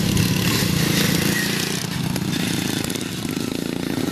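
Engines of several racing riding lawn mowers running hard as the pack passes close by. The sound eases a little about three seconds in.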